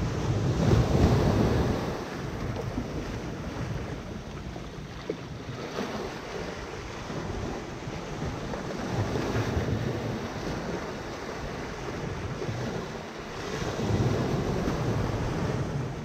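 Small sea waves washing up the sand and splashing against a rocky breakwater, surging three times, loudest about a second in. Wind buffets the microphone.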